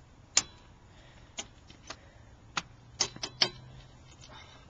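A lug wrench working the lug nuts off a car wheel: about seven sharp, irregularly spaced clicks, the loudest about half a second in and a quick cluster around three seconds in.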